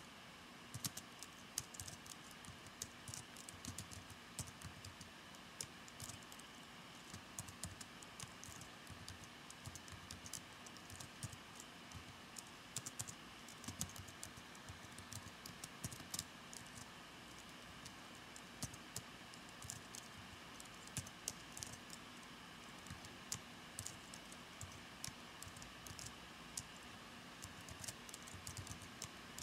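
Typing on a computer keyboard: quick irregular keystrokes in runs, with short pauses, over a faint steady hum.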